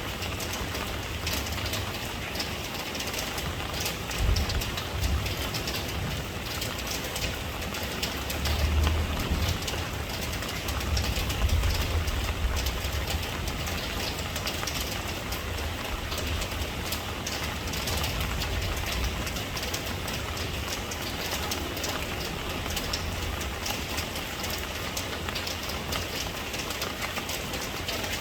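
Steady rain hissing and pattering, with a low rumble underneath that swells and eases a few times, most strongly around four, nine and twelve seconds in.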